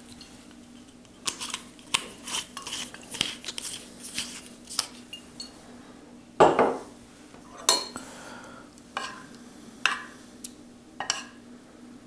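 Tableware clinking and knocking on a wooden table: a small glass vinegar bottle being handled and set down, then a metal spoon clinking against a ceramic soup bowl. A quick run of clicks comes in the first few seconds, a heavier thump about six and a half seconds in is the loudest sound, and a few single clinks follow near the end.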